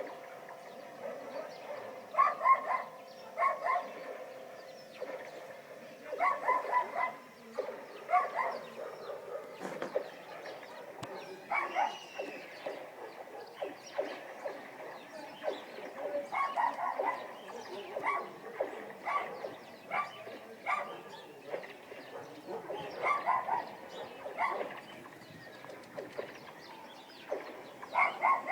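Dogs barking repeatedly, in clusters of short barks every couple of seconds, with a steady tone beneath them that stops about seven seconds in.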